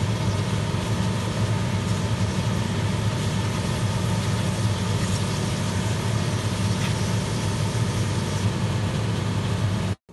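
Patties frying in hot coconut oil in a pan, under a loud, constant low mechanical hum with steady hiss. The sound cuts off suddenly near the end.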